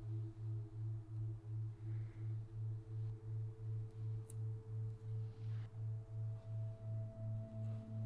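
Ambient background music: a low bass note pulsing about three times a second under soft sustained tones that change pitch a couple of times.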